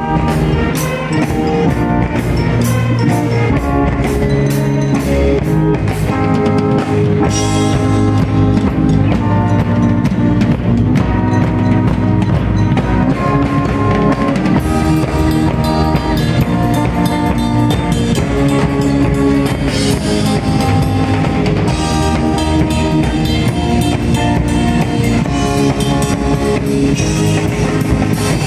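A large live band of brass horns, drums and electronic keyboards playing a piece, with a steady drumbeat under sustained horn and keyboard notes.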